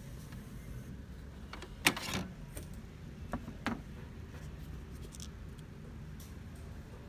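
A sharp plastic click about two seconds in, then a brief rustle and two lighter clicks, from hands handling the inkjet printer and its 805 ink cartridges, over a faint steady low hum.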